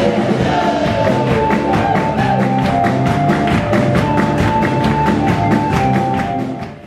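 Instrumental music with drums keeping a quick, steady beat under held notes; it fades out near the end.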